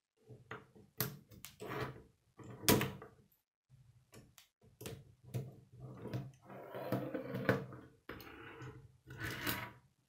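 A K'nex plastic model clicking and rattling as hands handle it, with a longer scraping stretch about two-thirds through as it is slid around on a wooden table.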